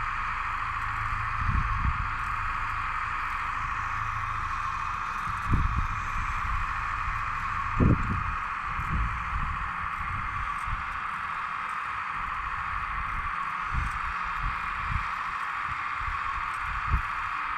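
Hydraulic RC model Kubota U17 mini excavator's pump whining steadily as the arm and bucket dig into soil, with irregular low thumps underneath.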